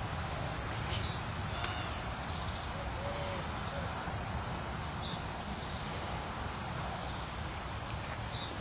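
Steady low rumble of outdoor background noise, with a few faint, short high chirps about a second, five seconds and eight seconds in.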